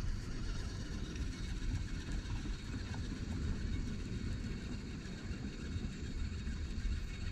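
Steady outdoor background: wind rumbling on the microphone, with faint distant traffic.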